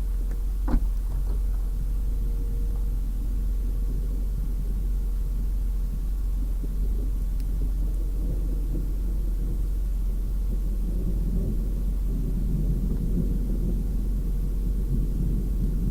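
Steady low rumble of a car driving, the road and engine noise heard from inside the cabin, growing a little louder in the second half. One sharp click comes under a second in.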